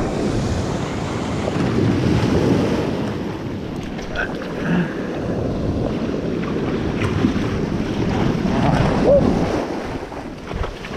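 Ocean surf washing and foaming close by, with wind buffeting the microphone.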